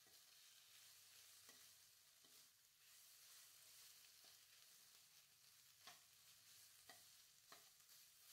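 Faint sizzling of shredded fingerroot frying with curry paste in a wok, with a metal spatula stirring and clicking against the wok a few times.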